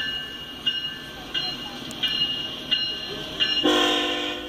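A railroad bell striking steadily, about three times every two seconds, over the low rumble of a slow-passing freight train. Near the end the locomotive horn sounds for about a second, the loudest part.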